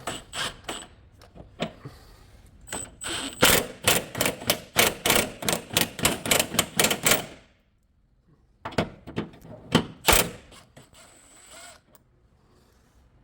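Hand ratchet wrench clicking in quick, even runs of about four to five clicks a second as a subframe mount nut is turned, with a pause before a shorter run near the end.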